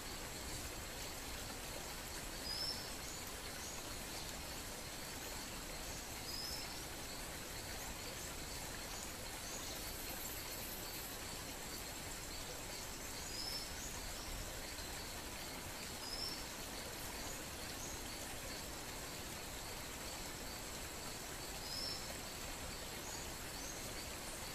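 Outdoor ambience of insects keeping up a steady high chirring, with five short, high bird chirps spaced a few seconds apart.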